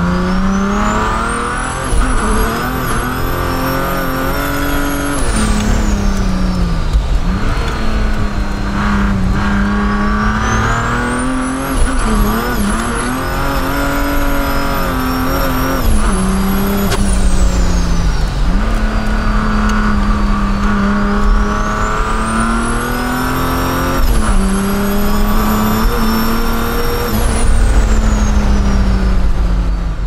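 Mercedes W124 300TD's OM606 straight-six turbodiesel, with a big turbo running 43 psi of boost, pulling hard, heard from inside the cabin. Three times the turbo whistle climbs to a very high pitch, holds, then sinks back as the throttle eases, over the engine running under load.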